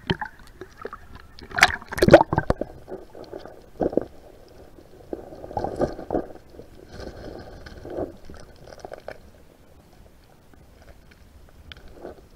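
Muffled water sloshing and gurgling around an action camera held underwater in shallow sea, with irregular knocks and splashes, the loudest cluster about two seconds in.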